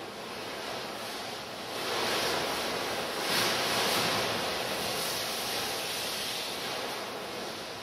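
A rushing wash of noise like breaking surf, swelling about two seconds in, peaking a little later, then slowly easing off.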